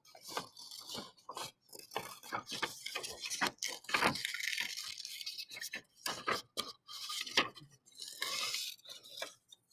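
Scissors cutting a picture out of a paper worksheet: a run of small snips and clicks with paper rustling between them.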